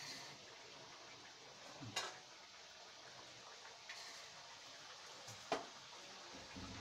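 Kachoris deep-frying in hot oil in a steel kadhai: a faint, steady sizzle, broken by a few sharp clicks, the clearest about two seconds and five and a half seconds in.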